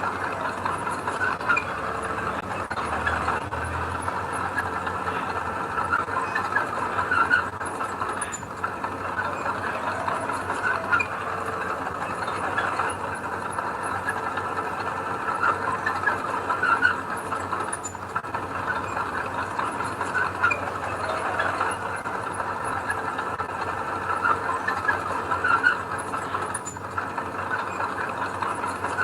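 Mini crawler bulldozer working: its engine runs steadily under a continuous mechanical clatter with frequent short metallic squeaks, typical of steel tracks.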